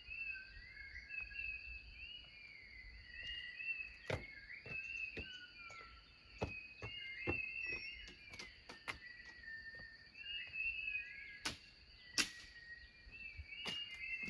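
Night chorus of insects: a steady high cricket trill with many short repeated chirping calls over it, and a scatter of sharp clicks.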